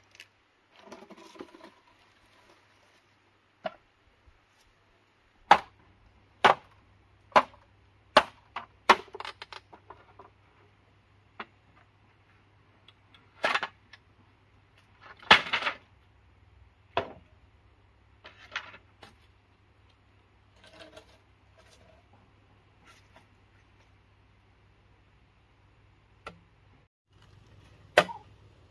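Irregular sharp knocks of hollow bamboo poles being handled, set down and bumped against each other, a dozen or so spread out, the loudest about halfway. Near the end a machete chops into a bamboo pole.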